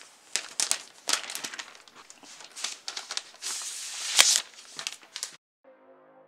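Protective wrapping on a new MacBook Air crinkling and tearing as it is unwrapped. A rapid run of sharp crackles is loudest about four seconds in and stops shortly after five seconds.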